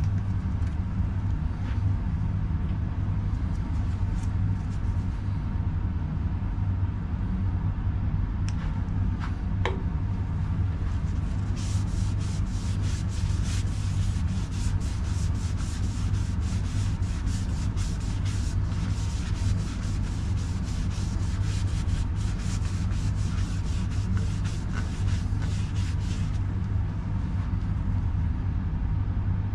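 Steady low hum of a wood lathe running. From about twelve seconds in until a few seconds before the end, a paper towel is pressed against the turning cedar bowl with a scratchy rubbing sound, wiping on the colouring.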